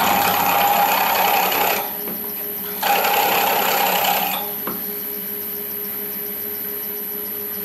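Milling machine spindle running with a twist drill cutting into a metal block held in the vise: two pecks of drilling, each a second or two of harsh cutting noise with a whine. Between and after the pecks the drill is clear of the work and only the spindle's steady running hum remains.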